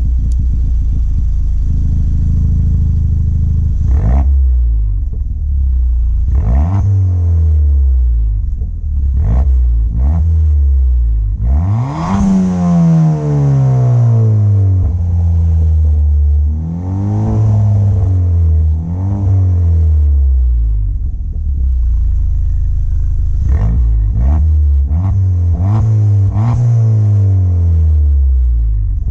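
Ford Fiesta ST's turbocharged 1.6-litre four-cylinder idling through a newly fitted KMS Hurricane cat-back exhaust and blipped in a series of quick revs. About twelve seconds in comes one longer rev whose pitch falls slowly back to idle, and near the end a quick run of short blips.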